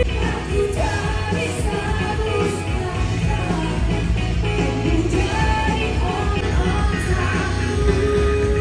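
Live rock band playing a song with a lead vocalist singing over it, at a concert soundcheck.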